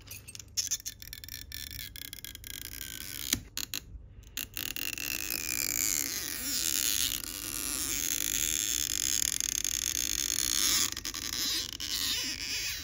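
Stretch-release adhesive strip being pulled out from under an iPhone battery. Light clicks and handling at first, then from about a third of the way in a long rasping creak as the adhesive stretches and peels, with a few faint sliding squeaks, easing off near the end.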